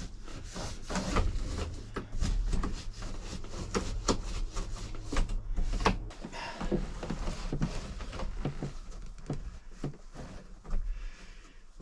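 Irregular rubbing strokes and light knocks of hands wiping soot off a truck cab's dashboard, with a low hum under the first half.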